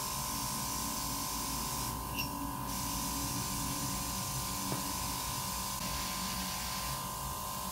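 Airbrush spraying nail colour: a steady hiss of air from the nozzle over a constant high hum from the airbrush compressor. The hiss eases briefly about two seconds in and again near the end.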